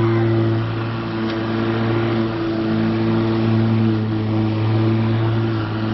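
Black & Decker cordless electric lawn mower running as it is pushed over thick grass: its motor and spinning blade give a loud, steady, low hum.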